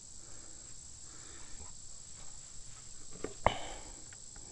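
Quiet handling of small metal washers and nuts and a plastic mulching cover by gloved hands, with a sharp knock about three and a half seconds in. Crickets trill steadily underneath as a thin high tone.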